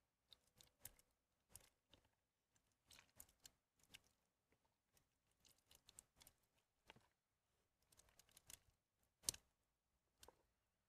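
Faint, irregular squishing and crackling of soaked, mushy bar soap being squeezed and kneaded by hand, with one sharper crackle a little after nine seconds in.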